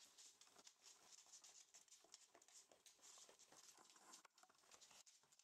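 Faint, irregular pattering and clicking of rough collie puppies' paws and claws on a hard laminate floor as they move about.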